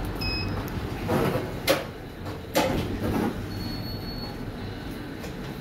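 Passenger elevator's steady hum, with two sharp clunks less than a second apart as its sliding doors open.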